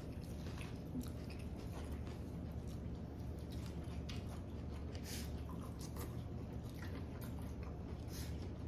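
People eating a seafood boil in butter sauce: chewing, with scattered short wet smacks and clicks, over a steady low hum.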